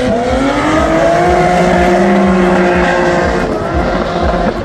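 Drift cars' engines held high in the revs through a tandem drift, the note rising slightly in the first second, holding, then falling away about three and a half seconds in, over a rough rumble of exhaust and tyre noise.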